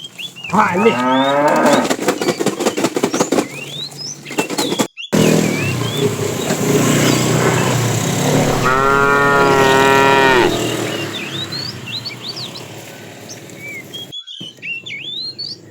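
Cows mooing: a first moo about half a second in, and a longer, steady moo in the middle of the stretch.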